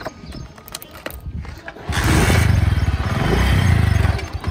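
A motorcycle engine is started after a few clicks and knocks. It catches about two seconds in and runs with a fast, even low putter, dipping briefly near the end.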